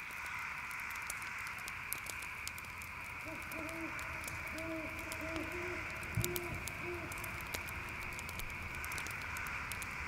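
Campfire crackling over a steady chorus of crickets, with a run of about six short owl hoots from about three to seven seconds in and a single low thump just after six seconds.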